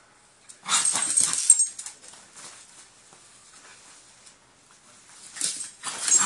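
A small Havanese dog pawing and scrabbling at bedding, heard as two loud spells of scratching and rustling, about a second in and again near the end.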